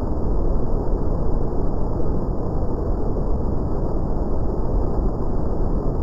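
Waterfall pouring over a rock ledge into a plunge pool: a steady, low rush of falling water.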